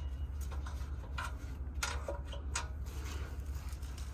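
A handful of short, light metallic clicks and taps from work on the car's underside, irregularly spaced over a steady low hum.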